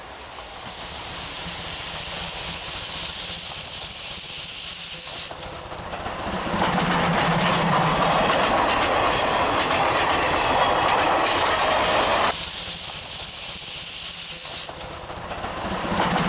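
C12 66 steam locomotive blowing steam from its cylinder drain cocks in a loud, steady hiss, broken by the rumble of the train's wheels on the rails as it passes. The sound cuts off sharply twice.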